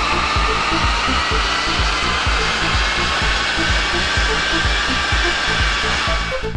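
Mercedes ML 350 CDI's 3.0-litre V6 turbodiesel pulling hard on a chassis dynamometer during a power run: a loud, steady roar of engine and rollers with a whine that climbs slowly as the revs rise. A music track with a steady beat plays underneath.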